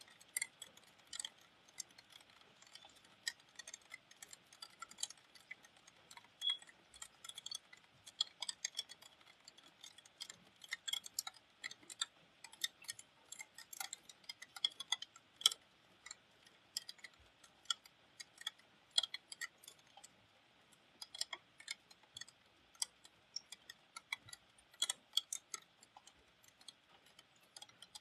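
Raindrops striking the metal casing of a window air conditioner: an irregular patter of sharp ticks, several a second, over faint rain hiss.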